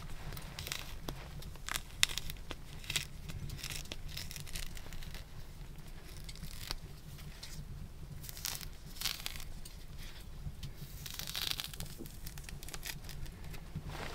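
Hands peeling a mandarin: the rind tearing away from the fruit in short crackly rips, with a sharp click about two seconds in.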